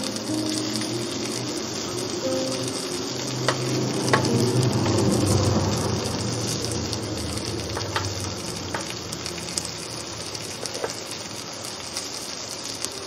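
Steak and green pepper strips sizzling on an electric contact grill, with metal tongs clicking against the grill plate a handful of times as the peppers are turned.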